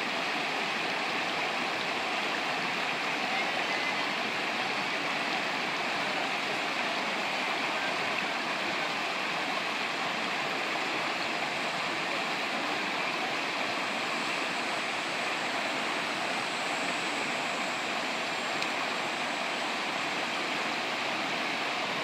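Shallow rocky stream rushing over boulders and small cascades: a steady, even rush of water.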